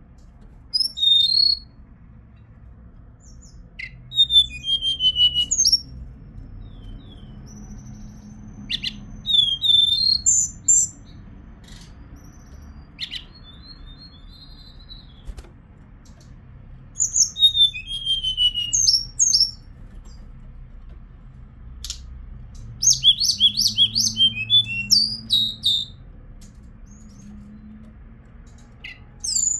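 Hill blue flycatcher (Cyornis whitei) singing: short phrases of high, clear whistled notes with quick falling slurs, about seven phrases with pauses of a few seconds between them. A faint low hum sits underneath.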